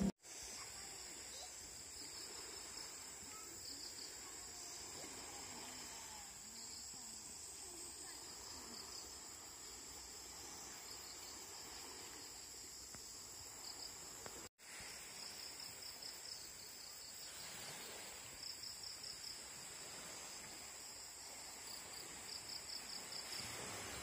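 Insects buzzing steadily at a high pitch, with repeated runs of rapid pulsing trills over the drone. The sound breaks off for an instant about fourteen seconds in.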